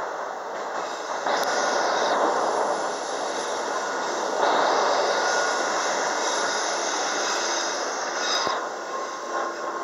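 MBTA Red Line subway car running between stations, heard from inside the car: a continuous rumble and rush of wheels on rail. Louder surges come about a second in and again about four and a half seconds in.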